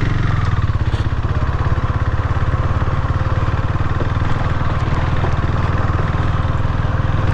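KTM 390's single-cylinder engine running steadily under light throttle as the motorcycle rolls slowly in low gear over a gravel track. The engine note is an even, continuous low pulse with no break.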